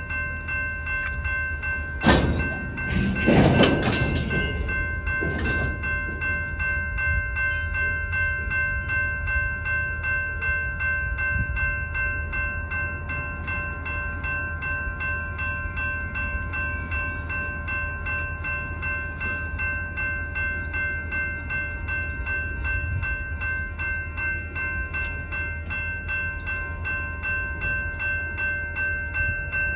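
Railroad crossing bell ringing steadily over the low rumble of freight cars rolling slowly through the crossing during a switching move. A loud burst of noise from the cars comes about two seconds in and fades by about four seconds.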